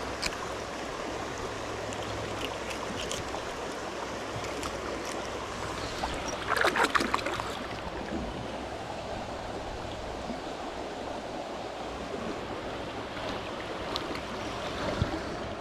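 Steady rush of flowing creek water, high after a flash flood, with scattered faint ticks and a brief louder burst of noise about seven seconds in.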